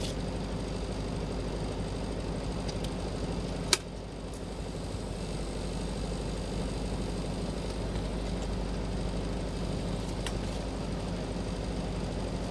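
Steady electrical hum of welding equipment, with one sharp click about four seconds in and a few faint ticks.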